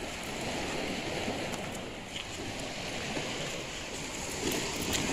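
Sea surf washing on the shore: a steady rushing noise.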